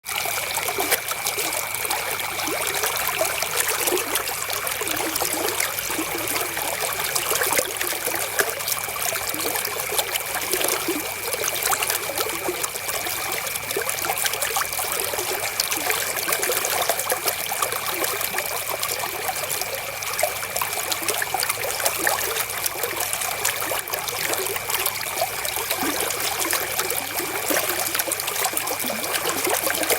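River water flowing steadily, trickling and splashing over stones in a continuous, unbroken rush.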